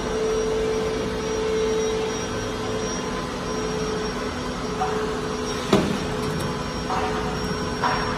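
Steady hum and rushing fan noise of workshop machinery, with a sharp metallic knock a little past halfway and a lighter one near the end as cut steel parts are handled on the steel table.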